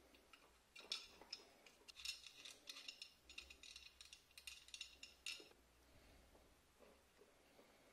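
Light metallic clicks and clinks from a steel welding ground clamp and a small nut being handled while a wire is fastened to the clamp's terminal bolt. A quick, irregular run of them starts about a second in and stops a little past the middle.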